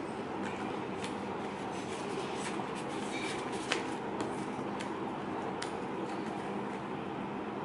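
Paper and card being handled: a documentation envelope and a black cardboard folder from a laptop box, giving a few soft taps and rustles, the sharpest about three and a half seconds in. A steady background hum and hiss runs underneath.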